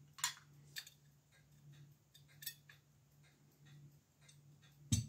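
Antique repeater pocket watch movement ticking faintly and quickly. Sharp metallic clicks come about a quarter second in, just under a second in and about two and a half seconds in, and a louder knock near the end, as the watch is handled.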